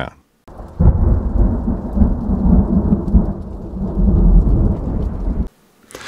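A low rumble of thunder that starts abruptly about half a second in and cuts off just as abruptly near the end.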